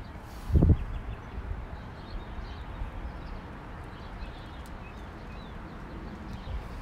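A single dull footstep on the stone porch about half a second in, over a low steady outdoor rumble with a few faint bird chirps.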